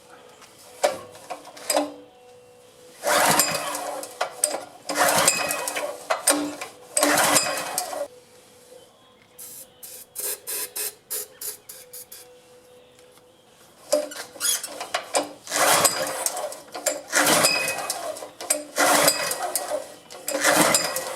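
Honda GX200 single-cylinder engine being cranked by hand with its recoil pull-starter, a row of roughly one-second pulls that do not make it fire. A run of quick clicks comes in the middle, between two sets of pulls.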